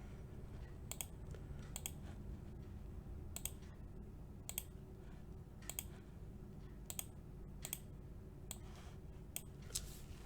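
Faint, sharp clicks, about a dozen, spaced irregularly roughly once a second, over a low steady hum.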